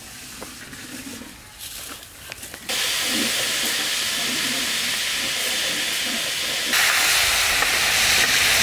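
Pieces of red snapper frying in oil on a large griddle, a steady loud sizzle that starts suddenly about two and a half seconds in and gets louder again near the end. Before it, only faint scraping clicks.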